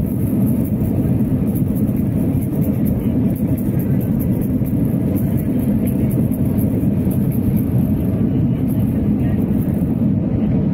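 Cabin noise of an Airbus A320 on approach, heard from a seat beside the engine: a steady low rumble of the jet engines and airflow with a faint high hiss.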